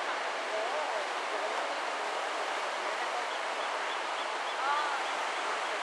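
Ocean surf breaking and washing up onto a sandy beach: a steady, even rush of waves.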